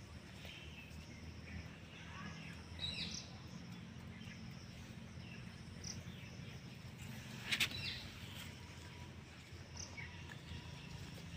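Outdoor ambience: scattered short, high chirps come and go over a steady low hum. There is one sharp click about seven and a half seconds in.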